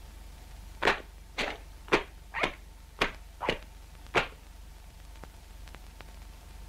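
Seven short, sharp hits in a quick, even series, about two a second, over a steady low hum of old film sound.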